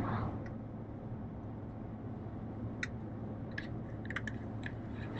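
Road noise inside the cab of a Ram 1500 pickup at highway speed: a steady low hum and tyre rumble, with a few faint clicks in the second half.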